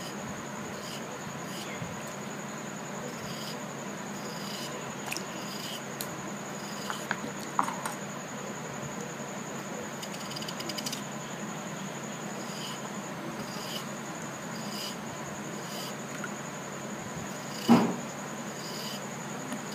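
Kitchen knife slicing a raw potato into sticks in the hand, giving small regular clicks about once a second, with one louder knock near the end as the blade or a cut piece meets the bowl. A faint high steady whine runs underneath.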